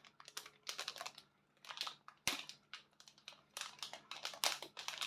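Plastic packaging crinkling and rustling in short, irregular spells as a small package is opened by hand, with a sharp click a little over two seconds in.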